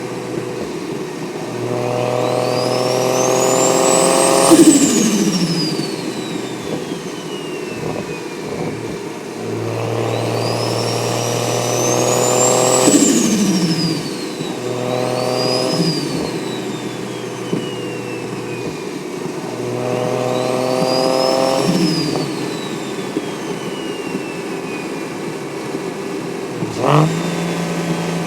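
BMW 335i's N54 straight-six with a single T51R turbo and straight-piped exhaust, accelerating in repeated pulls: a high turbo whistle climbs with each pull and falls away after the throttle is lifted. There are three long pulls and one short one; near the end the engine note drops suddenly and settles into a steady lower tone.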